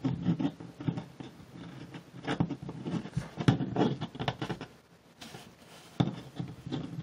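Plastic action figure being handled and posed, its joints clicking and rubbing as the legs and arms are bent: a run of irregular small clicks, the loudest about three and a half seconds in.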